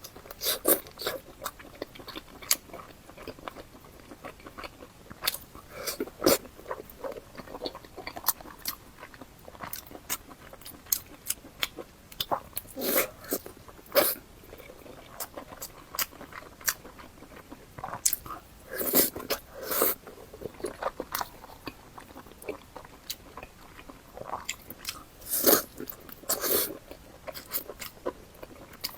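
Close-miked eating: biting and chewing braised pork belly (ba zi rou), with irregular sharp mouth clicks and a few louder bites.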